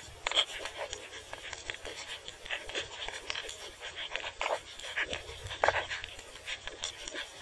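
Irregular clicking and crackling picked up underwater, scattered unevenly.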